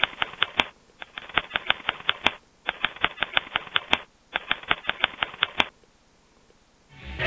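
Typewriter sound effect: keys clacking in four quick runs of about eight strokes a second, with short pauses between runs.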